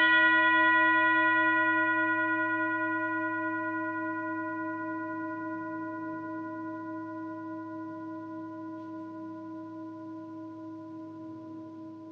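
A singing bowl, struck once, ringing on with several steady, clear tones that fade slowly, with a gentle wavering pulse in the ring.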